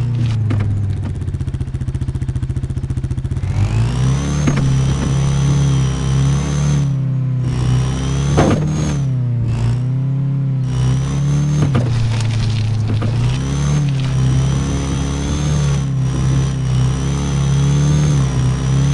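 Motor vehicle engine running, its pitch rising and falling several times, with a rapid low pulsing in the first few seconds.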